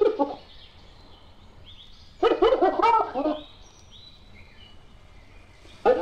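Spotted hyena laugh: a rapid, stuttering run of high giggling notes lasting about a second, starting about two seconds in.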